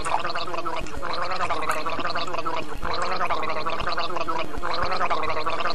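A red drink glugging steadily as it pours from the neck of a glass jug into a ceramic mug.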